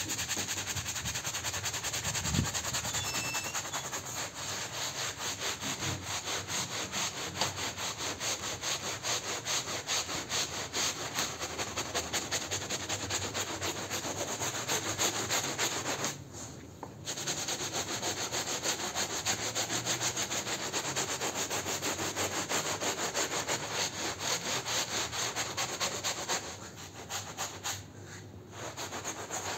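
Hand scrub brush scrubbing a soapy carpet in rapid back-and-forth strokes, pausing briefly twice, around the middle and near the end.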